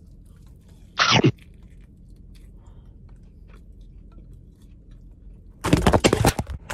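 A bite into a fried chicken sandwich about a second in, then faint chewing. Near the end a loud clatter of knocks and rattles as the camera falls over and tumbles.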